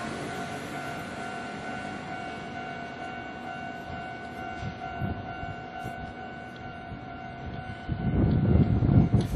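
Japanese level crossing warning bell on Kintetsu's Nara Line ringing steadily over the fading rush of a passing train. About eight seconds in, a loud low rumble starts.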